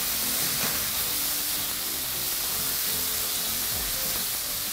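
Chicken and vegetables in broth sizzling steadily in a stainless steel frying pan as they are stirred with a wooden spatula, with background music underneath.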